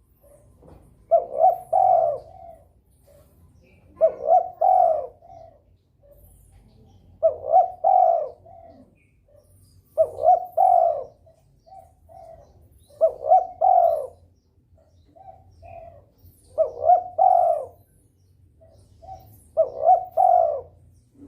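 Spotted dove cooing in short repeated phrases of a few low notes, a phrase about every three seconds, seven in all: a bird in breeding condition calling persistently. Faint high chirps sound between the phrases.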